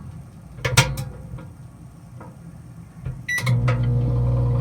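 A sharp clack about a second in, then a short keypad beep a little after three seconds, and the microwave oven starts running with a steady low hum.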